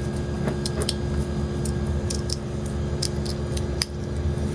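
Scattered small metallic clicks and taps as a clipper blade is handled and repositioned on a sharpening stone, over a steady low hum.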